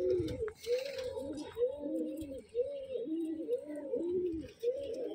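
Domestic pigeons cooing in their loft: a steady run of low coos, one about every half second.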